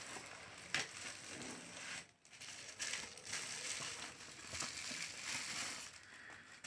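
Plastic bubble wrap crinkling and crackling as it is handled and pulled off a camera body, with a short lull about two seconds in.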